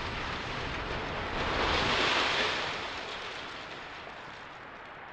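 Rushing, rumbling roar after explosive demolition charges fire in a concrete silo tower, swelling about two seconds in and then slowly fading.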